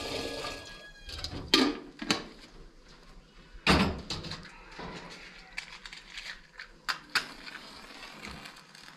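Irregular knocks and clatters, a handful of separate hits over a few seconds, the loudest about a second and a half in and again near four seconds.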